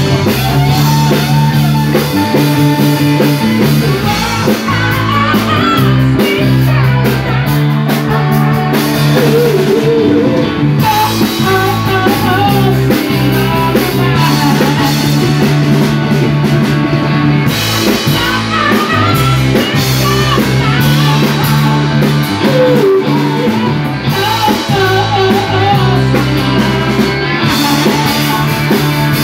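Live rock band playing: electric guitars and drum kit, with harmonica and a man singing into the microphone.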